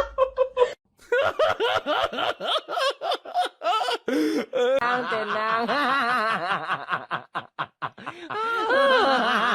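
A person laughing in quick, repeated bursts, with a brief break just under a second in.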